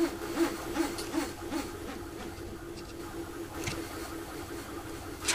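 A small motor's steady whine that pulses about two and a half times a second, with pitch rising and falling in step; the pulsing stops about a second and a half in, leaving a faint steady hum.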